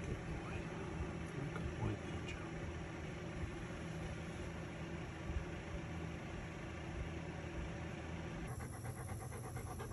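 A steady low mechanical hum, and near the end a Chesapeake Bay retriever starts panting.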